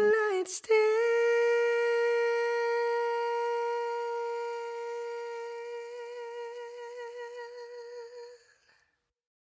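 A singer's single long held note without backing, steady at first, then wavering with widening vibrato as it fades out about eight and a half seconds in: the song's closing note.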